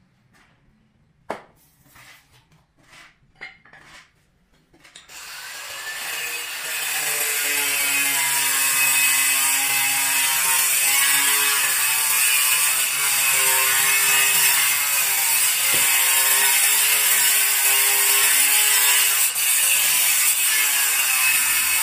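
A few scattered knocks, then about five seconds in a handheld electric cutter starts and runs loud and steady, its whine wavering in pitch as it bites into marble while pieces are cut to fit.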